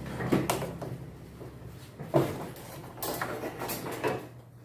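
A few clunks and knocks of Samsung front-loading washing-machine parts being handled and fitted into the cabinet during reassembly, the loudest about two seconds in, over a low steady hum.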